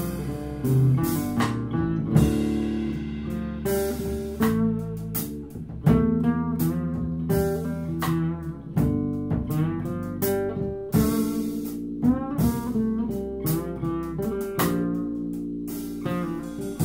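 Instrumental fusion music: a nylon-string classical guitar playing a run of plucked, ringing notes over electric bass, with frequent sharp percussive hits.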